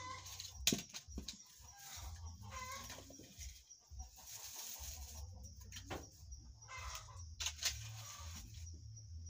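Chickens clucking now and then, with sharp snaps and knocks as dry sticks and kindling are broken and laid in a wood-fire hearth; the loudest snaps come about a second in and again near the end.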